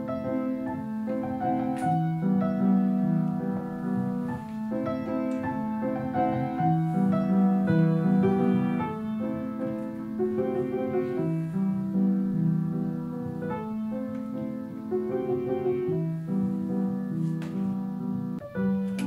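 Solo piano music playing a slow theme, with chords changing every second or two.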